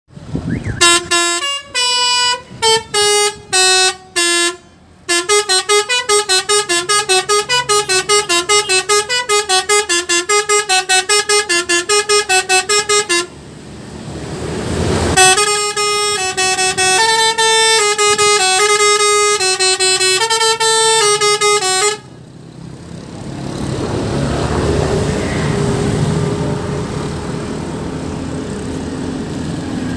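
Telolet basuri musical bus horn playing a tune in quick, short notes, in two long phrases. Between and after the phrases there is a steady rumbling noise, filling about the last eight seconds.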